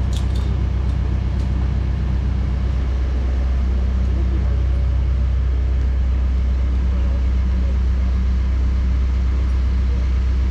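Case backhoe's diesel engine running steadily at idle, a constant low drone with no revving.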